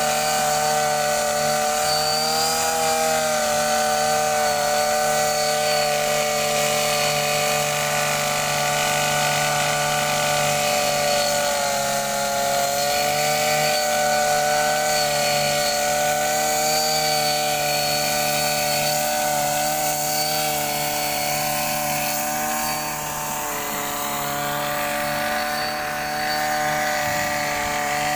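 Petrol brush cutter (line trimmer) running at high revs as it trims grass, a steady engine whine with slight dips in pitch about 2 to 3 seconds in and again around 12 seconds.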